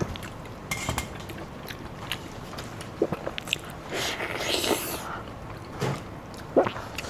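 Close-up eating sounds: a person chewing and biting food, with scattered short wet clicks and smacks.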